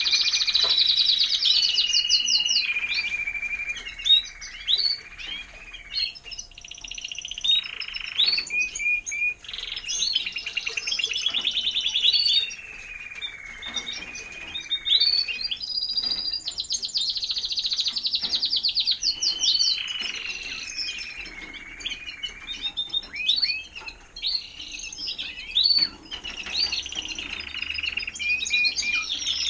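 Timbrado Español canaries singing. Very fast trills alternate with long held notes that glide slowly up and down in pitch, and the song goes on without a break.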